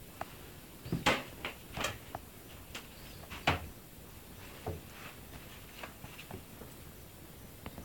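Irregular knocks, clicks and thumps from someone moving about inside a wooden cabin, the loudest about a second in and again about halfway through.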